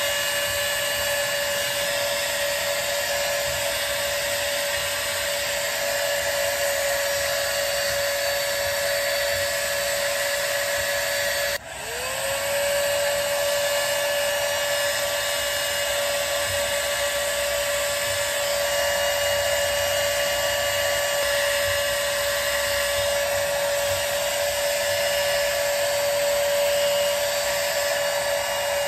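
Stay Young 5-in-1 hot-air styler blowing through its curling barrel: a steady high motor whine over rushing air. About twelve seconds in it cuts out for a moment and winds back up to speed.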